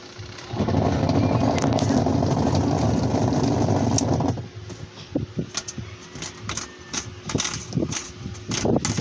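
Washing machine motor switched on for a test run: it runs steadily for about four seconds, then stops suddenly. Sharp clicks and knocks follow.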